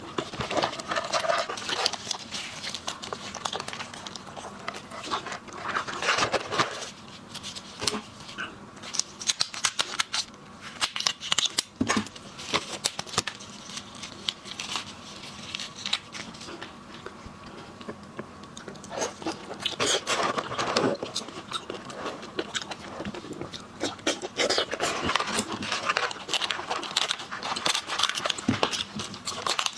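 Close-up eating sounds of boiled seafood: shells cracking and being torn apart, with chewing. A steady run of sharp clicks and crackles, with a few longer, louder tearing stretches.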